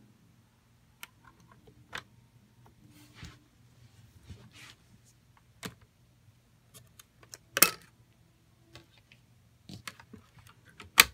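Scattered small clicks and plastic rattles from handling a Timex T617S clock radio's front-loading CD compartment as a disc is lifted off the spindle. There is a louder click about two-thirds of the way through, and a sharp snap near the end as the CD door is shut.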